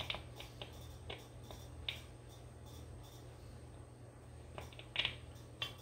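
Light metallic clicks and clinks of steel nuts and lock washers being handled and started onto the wheel-weight bolts of a tractor's front wheel: a handful of scattered taps, the loudest about five seconds in.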